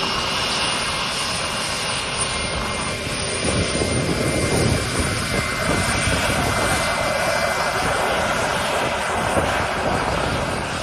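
Twin turbofan engines of an Embraer KC-390 transport running as the aircraft moves along the runway, a steady jet noise whose low rumble grows heavier from about four seconds in.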